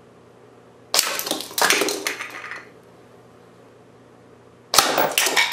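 Two shots from a .177 break-barrel spring-piston air rifle, about a second in and again near the end, each a sharp crack followed by plastic toy pieces clattering and rattling as the targets are hit and scatter.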